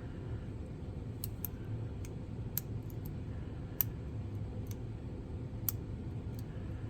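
Lock pick working the pins of a pin-tumbler lock: faint, irregular small metallic clicks as pins are lifted and set, about one a second, over a low steady hum.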